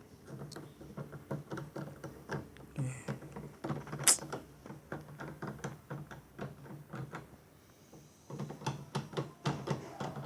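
Irregular run of small mechanical clicks and taps, several a second, easing off for a couple of seconds past the middle and then resuming.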